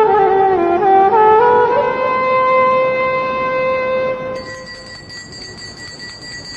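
Background film music: a wind instrument plays a slow melody that steps between notes and settles on a long held note. A little over four seconds in, the melody stops and a much quieter passage follows.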